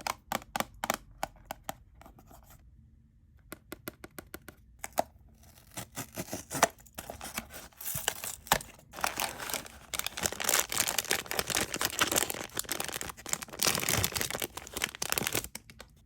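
Quick taps on a Pop Mart blind box, a burst at the start and more a few seconds later. Then a long stretch of packaging crinkling and tearing as the box is unwrapped.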